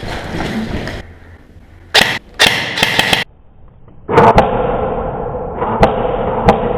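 Airsoft rifle fire: a few sharp single cracks spaced irregularly, with rustling and handling noise between them and a short loud burst of noise around the middle.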